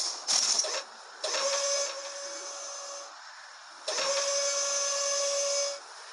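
Imperial probe droid sound effect: a couple of short crackles in the first second, then a steady whistle-like tone over a hiss that sounds twice, each time for about two seconds.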